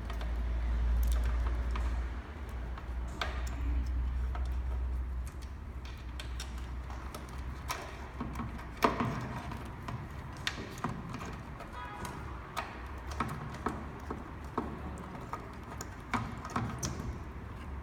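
Scattered clicks and knocks of parts and tools being handled while fitting the battery, controller and wiring into an electric scooter's deck, with one sharper knock about nine seconds in. There is a low rumble in the first few seconds.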